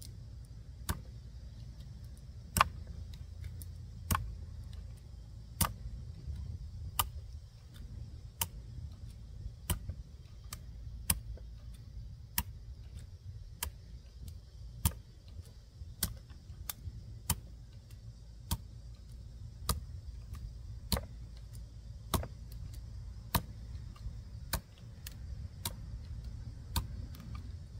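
Out-the-front automatic knives, a Microtech Combat Troodon and its clone, making sharp clicks or knocks about once a second, over a steady low rumble.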